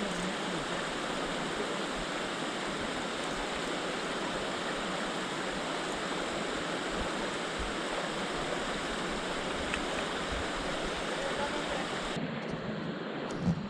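River water rushing steadily. Near the end it turns duller, with a short knock.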